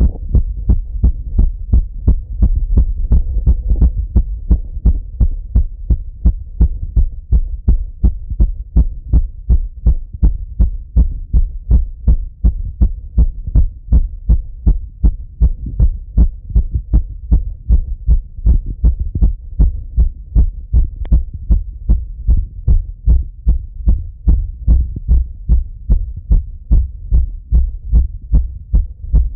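A man's heart beating fast and steadily, heard through a stethoscope on the chest: a regular train of deep lub-dub thumps.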